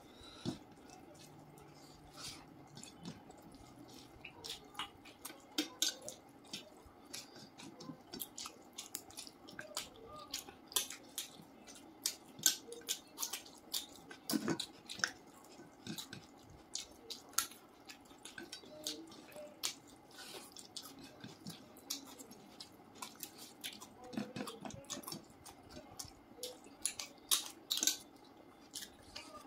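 Close-miked eating by hand: wet chewing and mouth clicks mixed with the squish of rice and curry being kneaded by fingers, heard as an irregular run of short sharp clicks.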